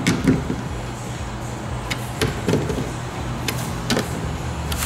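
Small cordless screwdriver working the screws of a plastic trailer-wiring socket: scattered sharp clicks and taps, with a couple of brief low buzzes.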